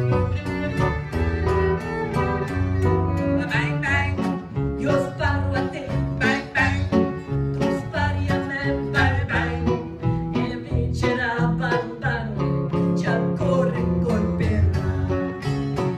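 Live gypsy jazz band playing: bowed violins carry a wavering melody over a rhythmic plucked guitar and bass accompaniment.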